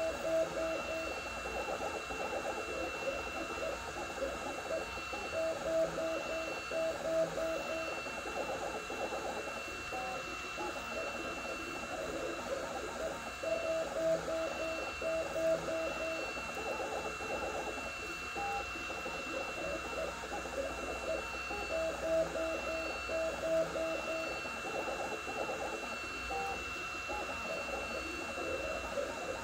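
Two Trees Sapphire Plus CoreXY 3D printer printing at 130 mm/s: its stepper motors sing in pitched tones that jump and change with each move, over a constant high whine.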